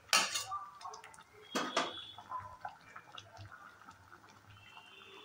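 Sweet tomato chutney, finished cooking, simmering in a pan with faint bubbling and small pops. Two sharp knocks come at the start and about a second and a half later.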